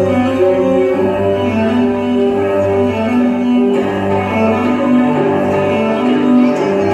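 Recorded dance music with bowed strings, cello to the fore, playing held melodic notes at a steady level.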